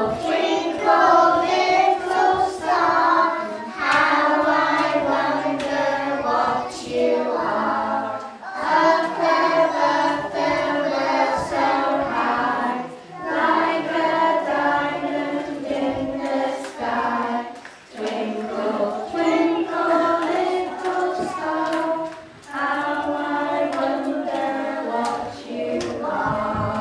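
A group of young children singing a song together, in sung phrases with short breaks between them.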